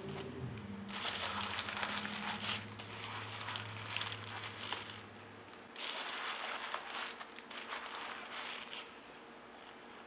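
Packing material around a shipped hatching egg crinkling as the egg is unwrapped by hand, in two spells of a few seconds each.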